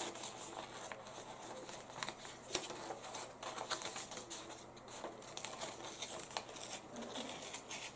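Scissors snipping through a folded sheet of paper in many short, irregular cuts, with the paper rustling as it is turned.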